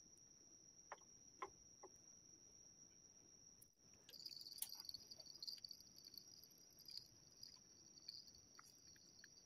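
Faint, steady high-pitched insect chirping, with a few light clicks from fishing tackle being handled about a second in.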